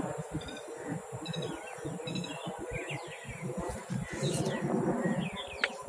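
Wild birds chirping, with short scattered calls and brief pitch glides, over a low irregular rustling.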